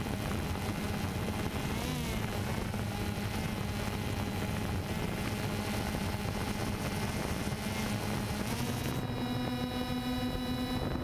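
DJI Phantom 2 quadcopter's motors and propellers buzzing steadily, heard close from the camera mounted on it, over a rush of prop wash. About nine seconds in, the pitch steps up as the drone climbs.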